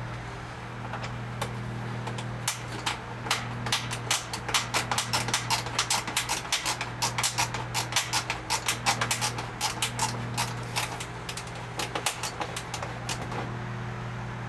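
Quick, irregular sharp clicks and taps of a hand tool working at the screws on the back of a washing machine's control panel, over a steady low hum.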